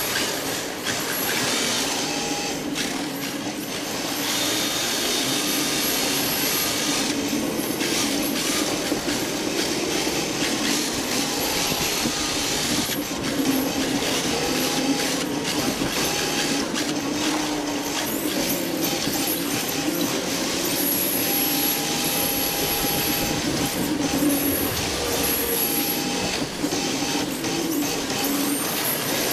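Onboard sound of a rear-wheel-drive RC drift car on a Re-R Hybrid chassis: its electric motor and drivetrain whining, the pitch rising and falling with the throttle, over the steady hiss of its tyres sliding on the smooth track surface.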